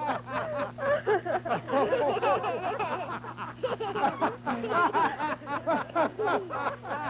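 Several people laughing and chattering at once, overlapping voices with no clear words, over a steady low hum.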